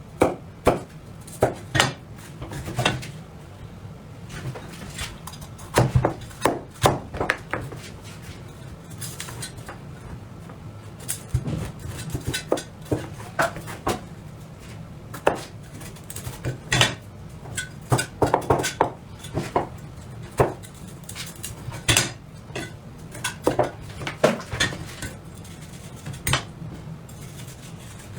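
Kitchen knife clicking and tapping against a cutting board in irregular clusters of short sharp knocks, as vegetables are cut and carved.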